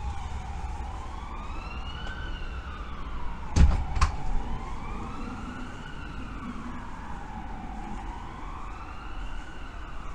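A siren wailing, its pitch slowly rising and falling about once every four seconds. Two sharp knocks come close together a little after three and a half seconds in.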